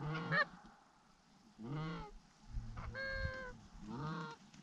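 Goose honks, four of them about a second apart, each breaking from a low note up to a higher one.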